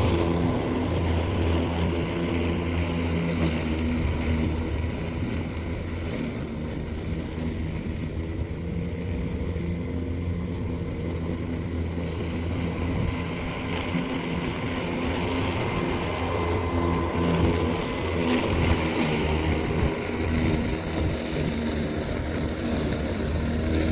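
Yeoman eM400C electric remote-control mower running with its cutting blades on high speed: a steady motor hum over a low drone. It gets a little quieter in the middle and louder again later.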